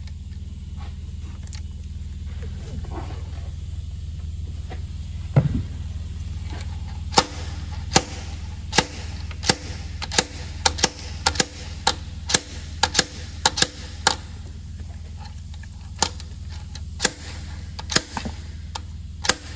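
Slide-hammer injector puller striking its stop again and again: sharp metal clacks, about one to two a second from about seven seconds in, jerking on a Delphi injector in a Renault 1.5 dCi (K9K) engine that is held tight by carbon build-up around it. Before that there is only quieter handling of the tool, with one thump about five seconds in.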